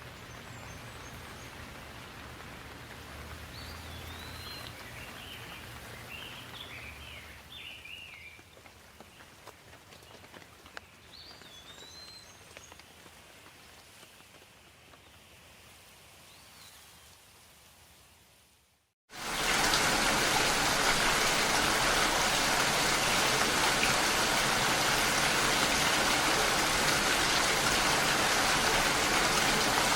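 Soft outdoor ambience with a few short chirping calls fades away, then after a brief silence steady, heavy rainfall starts, an even rushing hiss that holds through the rest.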